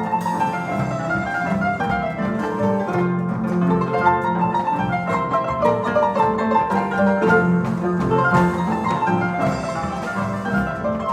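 Paraguayan harps playing music, a continuous stream of quick plucked notes over sustained low notes.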